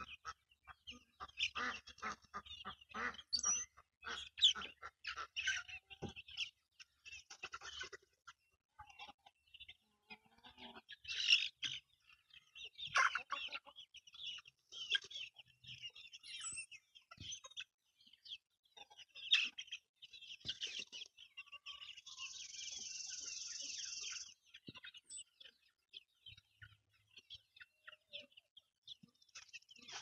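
A flock of chickens clucking, with many short calls overlapping and scattered sharp clicks in between.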